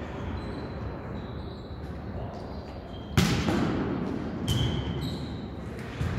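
A volleyball being hit and bouncing in a large sports hall. One sharp, loud smack comes about three seconds in and echoes around the hall, followed by two lighter impacts.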